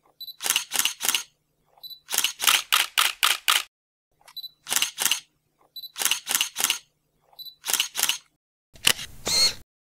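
Camera shutter sound effect: a short high beep followed by a quick run of two to six shutter clicks, repeated five times, then a louder, noisier burst near the end.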